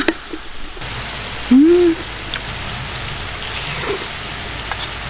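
Duck slices and chives sizzling steadily in a frying pan on a portable gas stove, an even frying hiss that starts just under a second in. A short hum from a voice rises and falls about one and a half seconds in.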